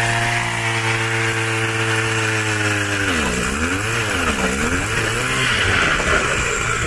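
Power ice auger drilling through lake ice: the motor runs at a steady pitch, then dips in pitch twice about three and four seconds in. Near the end it gives way to a rough churning as the bit breaks through and water and slush surge up the hole.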